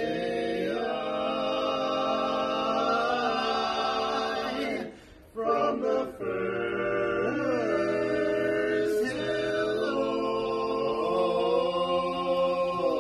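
Male vocal quartet singing a cappella in close harmony: long held chords, with a brief break about five seconds in before the singing resumes.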